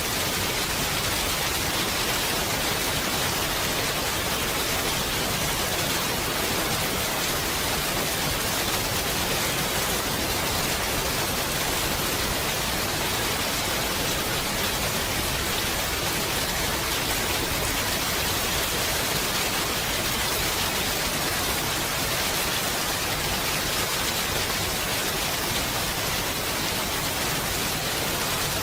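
Steady rain falling, an even hiss of many drops with no distinct impacts or changes.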